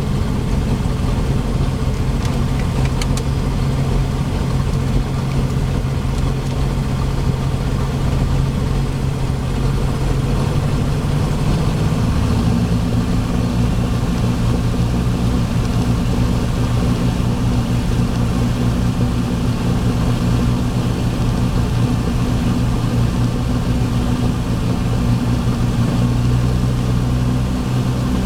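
Light single-engine airplane's piston engine and propeller running at low taxi power, heard from inside the cockpit. About 11 to 12 seconds in, the engine note steps up slightly and then holds steady.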